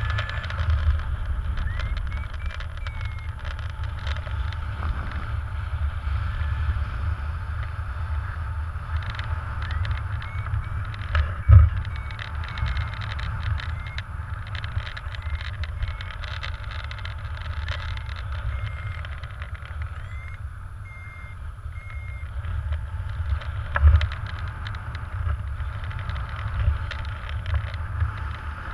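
Airflow buffeting the helmet camera's microphone during paraglider flight, with two louder knocks of wind about a third of the way through and near the end. Faint strings of short high beeps from the flight instrument's variometer come and go over it, the tone it gives while the glider climbs.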